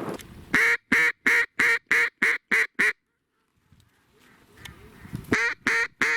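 Hen mallard descending call: a run of about eight loud quacks that get shorter and quicker, ending abruptly about three seconds in, then a second run starting about five seconds in.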